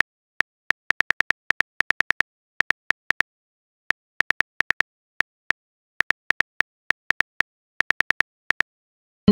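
Keyboard typing sound effect: short, sharp key clicks in irregular runs of a few at a time, with short pauses between runs. Right at the end a loud plucked message-notification tone begins.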